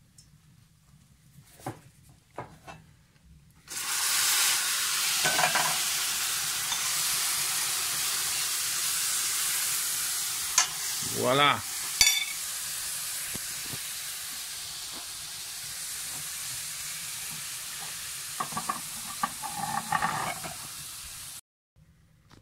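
Ostrich fern fiddleheads frying in hot butter and breadcrumbs in a pan, a loud steady sizzle that starts suddenly about four seconds in as the wet, freshly boiled fiddleheads hit the butter, with a few stirring clicks. The sizzle cuts off suddenly near the end.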